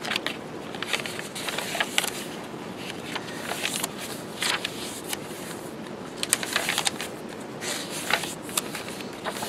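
Paper pages of a handmade junk journal being turned by hand, one after another: short rustles and crisp crackles of paper at irregular moments.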